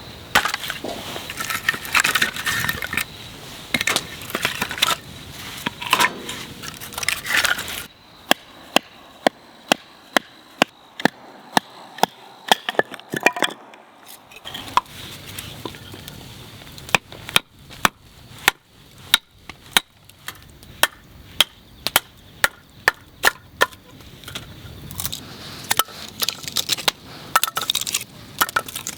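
Small dry sticks being snapped and broken up for kindling: a dense run of cracking and crunching, then a long series of single sharp snaps about one to two a second, growing busier near the end.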